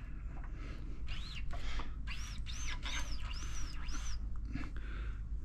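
A small bird chirping: a series of about five high, arched chirps, each rising and falling, roughly two a second.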